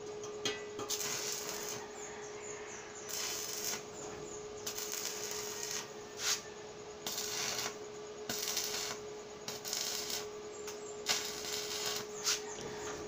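Electric arc welding on a steel frame: the welding arc crackles and sizzles in repeated short bursts, each under about a second, with a steady hum underneath throughout.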